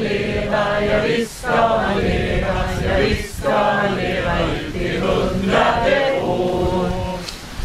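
A group of adults singing a song together in unison, in held phrases broken by short pauses for breath.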